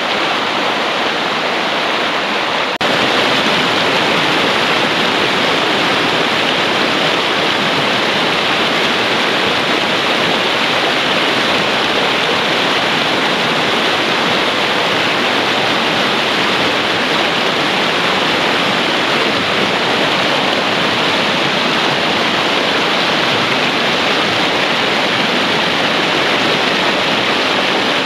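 Mountain stream rushing and churning over boulders as a steady, loud white-water roar. It jumps suddenly louder about three seconds in, then holds even.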